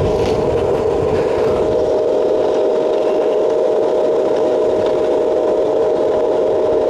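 Stick welding in progress: the arc and welder give a loud, steady buzz with a constant tone, with a low rumble in the first second or so.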